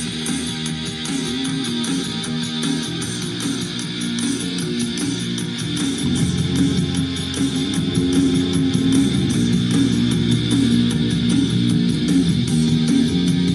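Guitar rock music with bass and a steady beat played back from a cassette on a Panasonic RQ-V150 personal cassette player, growing louder about six seconds in.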